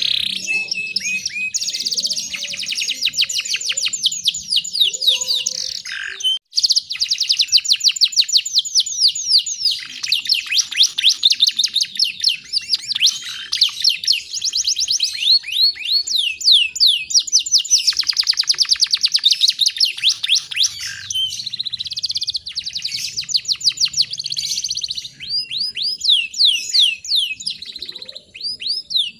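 Canary song: long runs of fast, repeated high chirping notes, rolling trills with a brief break about six seconds in.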